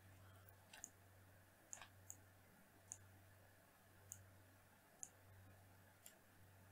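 Faint computer mouse clicks, about eight of them at irregular intervals, over near-silent room tone with a steady low hum.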